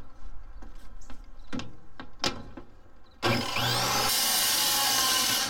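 A few light knocks and clicks as a corded circular saw is set against a sheet of half-inch plywood. Then, about three seconds in, the saw starts suddenly and runs steadily, cutting into the plywood.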